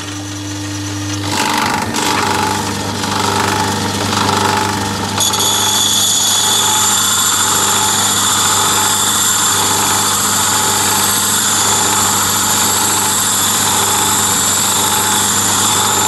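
Lathe running with a diamond lapping wheel spinning in the chuck while a carbide-tipped lathe tool is pressed against its face, lapping an angle on the tip. Under the steady motor hum, a steady high-pitched whine of the lapping comes in about five seconds in and holds to the end.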